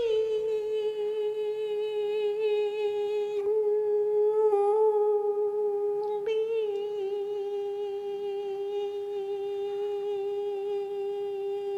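An elderly woman's Peking opera voice holding one long drawn-out note on a single pitch, with slight wavers a few seconds in.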